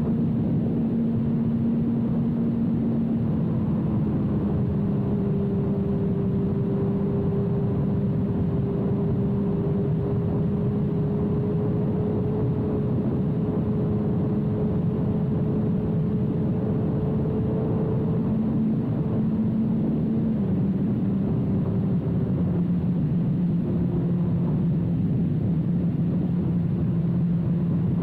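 2006 Suzuki GSX-R1000's inline-four engine through a full Yoshimura carbon/titanium exhaust, running at a steady cruising throttle with wind rush over the microphone. The engine note holds steady and drops slightly in pitch about three-quarters of the way through.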